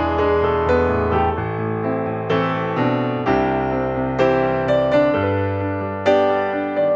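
Background piano music: a gentle melody of notes struck about every half second over sustained low chords.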